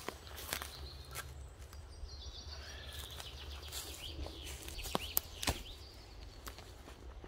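Footsteps on dry leaf litter and twigs on a woodland floor, with birds chirping in the background and a few sharp clicks about five seconds in.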